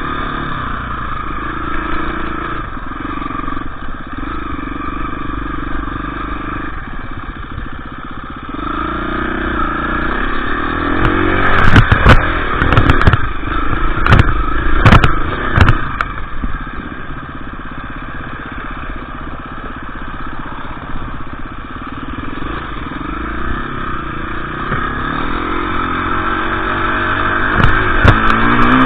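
KTM 350 EXC single-cylinder four-stroke enduro engine running off-road under changing throttle, its pitch stepping and rising as it revs up about a third of the way in and again near the end. A run of sharp knocks and clatter comes in the middle, while the engine is revving hardest.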